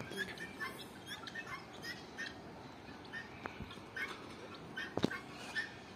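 Many small caged birds chirping together in an aviary, with short overlapping chirps several times a second. There is a sharp tap about five seconds in.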